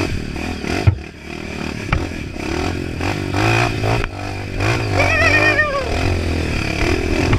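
Dirt bike engine revving up and down as the bike is ridden over a rough trail, with two sharp knocks, about one and two seconds in.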